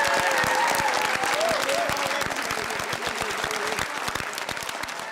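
Audience applauding, many hands clapping densely and fading off toward the end. A wavering tone sounds faintly over the clapping in the first half.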